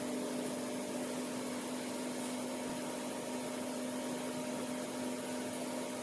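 Steady background hum with an even hiss, unchanging throughout; no distinct event stands out.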